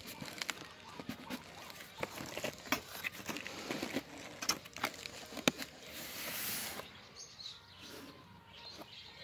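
Cardboard box and plastic stretch wrap being handled: irregular crinkling and crackling clicks, with a longer rustle about six seconds in.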